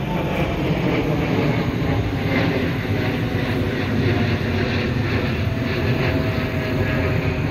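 Airplane flying overhead: a steady, loud engine rumble.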